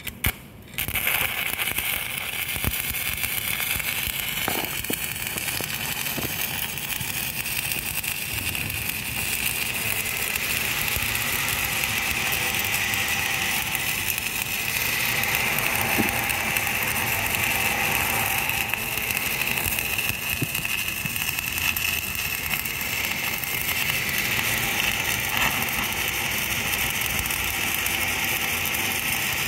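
Stick (shielded metal arc) welding with an LB-52 (E7016) electrode: the arc is struck about a second in, then crackles and sizzles steadily.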